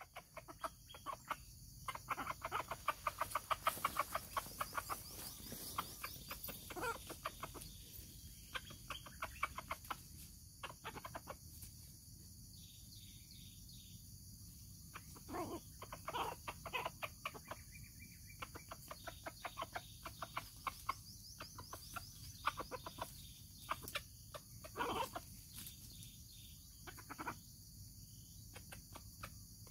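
Junglefowl clucking in quick runs of short clucks, densest in the first few seconds and returning in scattered bursts. A steady high-pitched hiss runs behind it.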